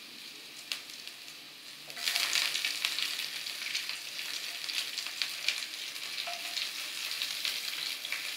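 Hot oil with chopped garlic and ginger sizzling in a kadhai as slit green chillies are cut straight into it. A quieter hiss for about two seconds, then the sizzle jumps up suddenly as the first chilli pieces drop into the oil, with crackling from then on.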